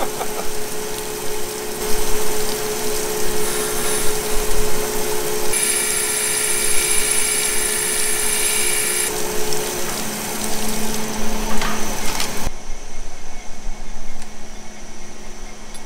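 Crankshaft grinder's wheel grinding down the outside edge of a stainless valve head: a steady grinding hiss, with a high whine for a few seconds in the middle. About three-quarters through the grinding cuts off suddenly, leaving the grinder's motor humming.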